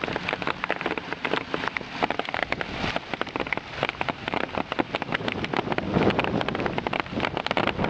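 Hail pelting down in a heavy storm: a dense, rapid clatter of hailstones striking surfaces, over the hiss of rain.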